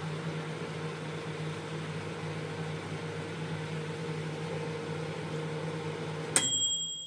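Microwave oven running with a steady hum. About six seconds in it stops with a sharp click, followed by a brief high tone like the oven's beep.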